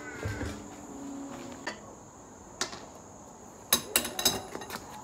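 Light metallic clinks and rattles as loose metal tools or parts are handled, with a quick cluster of them about four seconds in.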